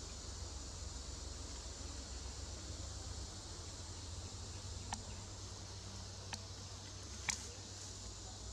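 Steady high-pitched insect chorus of the forest, over a low steady rumble, with three short sharp clicks in the second half, the last and loudest near the end.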